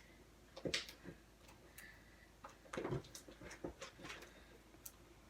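Faint, irregular clicks and squelches of fluffy glue-and-shaving-cream slime being stirred in a bowl while it activates.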